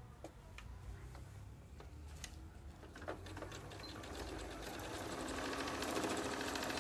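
Electric domestic sewing machine stitching a seam across folded fabric. After a few light clicks as the fabric is set under the foot, it starts about three seconds in, and the fast stitching rhythm grows louder toward the end.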